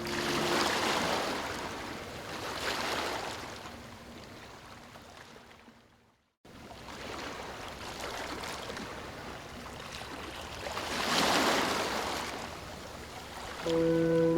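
Ocean surf washing in slow swells that build and recede, with a brief dropout to silence about six seconds in. Soft sustained music notes come back in near the end.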